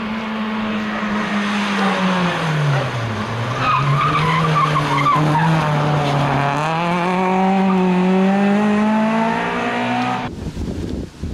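Suzuki Swift GTi rally car's 1.3-litre four-cylinder engine dropping in revs as it slows into a bend, with the tyres squealing briefly through the corner. It then revs up steadily as the car accelerates away. About ten seconds in the engine sound cuts off abruptly, leaving wind on the microphone.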